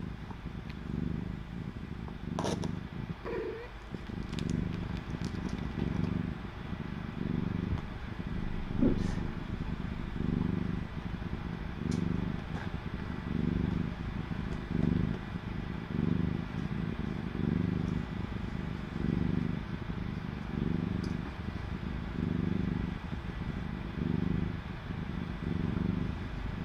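Mother cat purring while her kittens nurse. The low purr swells and fades evenly about once a second, with a few faint clicks.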